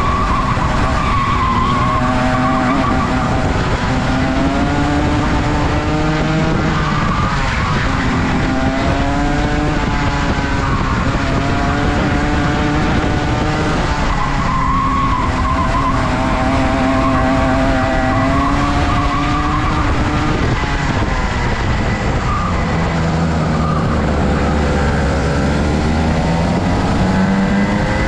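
Rotax 125cc two-stroke kart engine running hard. Its pitch climbs for a few seconds and then drops back sharply, about half a dozen times, as the kart accelerates and slows around a circuit.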